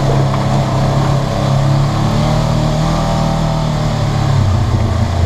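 Polaris RZR 900 side-by-side's twin-cylinder engine running steadily as it drives a dirt trail, heard from inside the cab. Its note drops to a lower pitch about four and a half seconds in.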